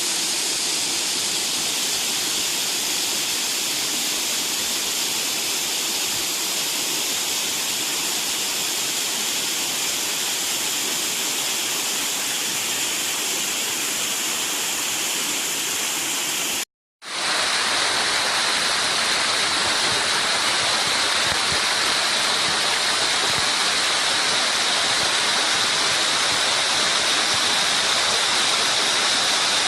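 Mountain stream rushing and splashing over rocks, a steady loud water noise. About 17 seconds in it cuts out completely for a moment, then carries on.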